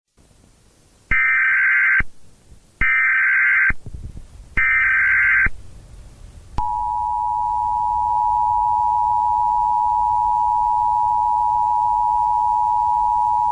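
Emergency Alert System tones: three short bursts of the SAME digital header, each a harsh buzzy warble lasting about a second. They are followed by the EAS attention signal, a steady two-tone alarm that starts about six and a half seconds in and holds on.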